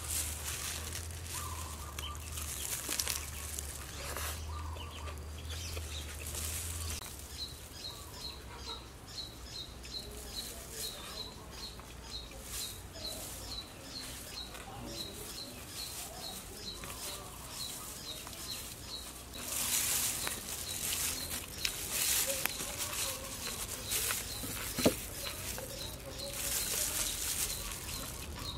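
Thin plastic food-prep gloves crinkling in bursts as hands wrap food, over a high chirp repeated two or three times a second that starts a few seconds in. One sharp click near the end.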